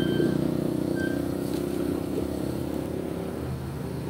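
A motor vehicle engine running with a steady low hum, easing off slightly toward the end.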